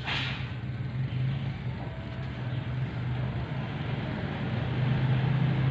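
Steady low mechanical hum with a continuous rushing noise over it, growing a little louder toward the end.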